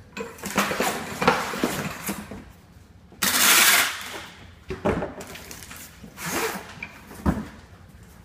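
Cardboard crackling and rustling as the rolling tool folds a flat blank into a triangular tube. About three seconds in, packing tape is pulled off a hand tape dispenser in one long rasp, followed by more cardboard scraping and a single knock near the end.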